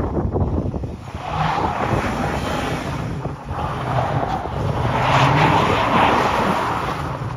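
1990s Ford F-series pickup's engine revving hard as its rear wheels spin on packed snow during a sideways drift. It swells from about a second in, is loudest around five to six seconds in, then eases. Wind on the microphone.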